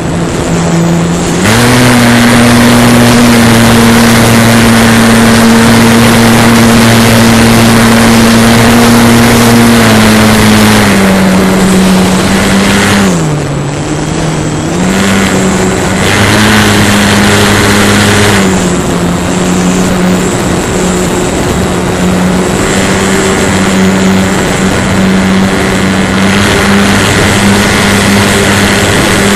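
RC model airplane's motor and propeller heard from the onboard camera: a loud, steady whine over rushing wind. The pitch steps up about a second and a half in, then drops, dips and rises again several times as the throttle changes.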